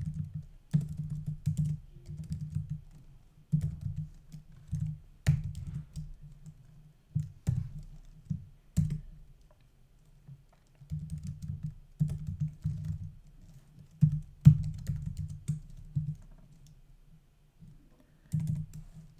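Typing on a computer keyboard: irregular runs of keystrokes, mostly dull with a few sharper clicks, broken by a couple of short pauses.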